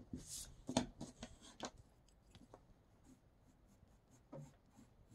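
Pencil and eraser working on drawing paper while sketching: a run of short scratchy strokes in the first couple of seconds, then fainter, sparser strokes.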